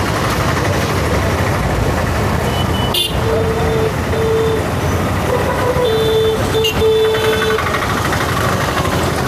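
Vehicle horns honking in a run of short and longer blasts from about three seconds in, over a steady rush of traffic and the flooded river.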